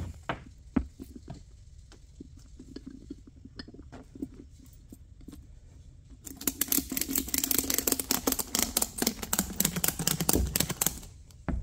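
Ratchet strap being cranked tight around a mower tire's tread, giving a fast run of sharp ratchet clicks for about five seconds that starts about six seconds in, after a few faint handling knocks. The strap squeezes the tire so its beads meet the rim before it is inflated.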